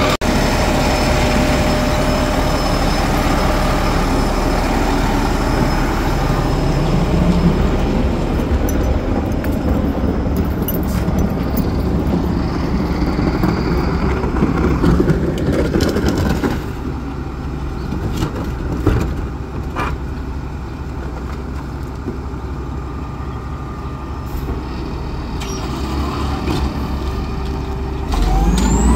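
Automated side-loader garbage truck running, its engine and hydraulics giving a steady drone with a whine, loud for about half the time and then dropping to a quieter idle with a few sharp clicks. Near the end the pitch starts to rise as the engine revs up for the lifting arm.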